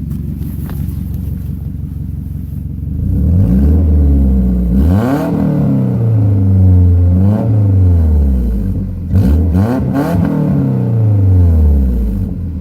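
1998 Toyota Camry engine idling, then revved three times, its pitch rising and falling each time, with a loud, raw exhaust note from a leak at the flex pipe.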